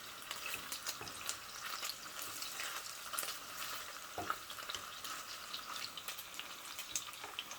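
Sausages sizzling in hot oil in a frying pan: a steady hiss with many small crackles and pops.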